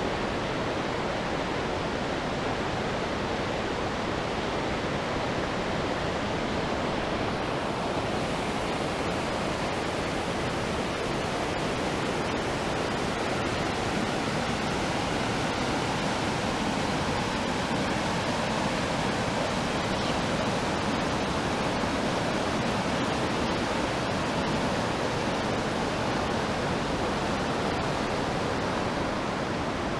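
Muddy flash-flood water rushing across and beside a road: a steady, even rush of flowing water.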